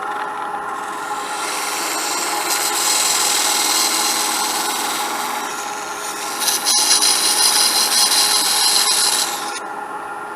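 Turning tool cutting a deep groove into a spinning cedar blank on a Grizzly wood lathe: a scraping hiss over the lathe's steady motor hum. The cut grows louder for the last few seconds, then stops abruptly near the end while the lathe keeps running.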